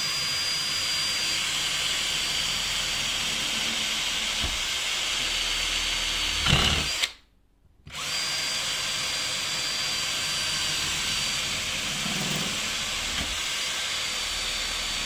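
Power drill with a 12 mm bit running steadily with a high whine as it bores through the two skins of a double-glazing window frame. It stops for about a second halfway, then starts again.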